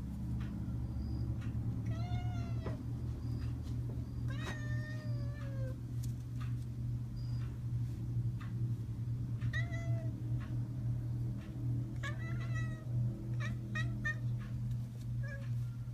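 A tuxedo house cat meowing about five times, with separate rising-and-falling calls, the one about four seconds in the longest, and short chirpy meows near the end. A steady low hum runs underneath.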